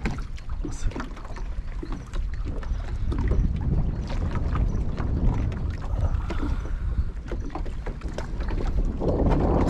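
Strong wind buffeting the microphone: an uneven low rumble with small scattered clicks. Near the end a louder, fuller rush of wind noise sets in.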